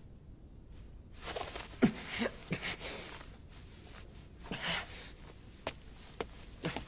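A young man's heavy, nervous breathing: several loud breaths and sighs, the loudest about two seconds in. Near the end come a few light clicks like footsteps.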